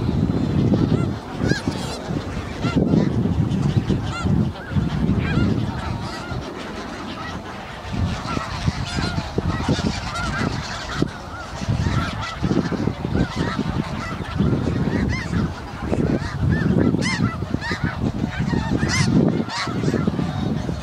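A flock of snow geese calling without pause: many short, overlapping honks. A gusty low rumble rises and falls beneath them.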